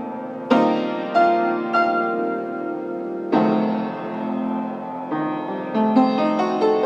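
Solo piano music: chords struck and left to ring, a few seconds apart, then quicker single notes near the end.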